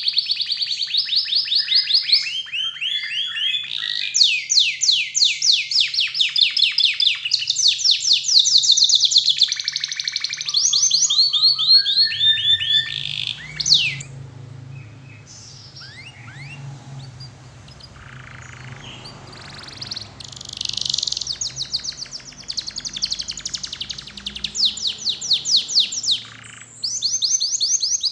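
Domestic canary singing: fast rolls of rapidly repeated whistled notes, each roll at its own pitch. The song breaks off about halfway for several seconds of scattered faint chirps, then starts again with more rolls.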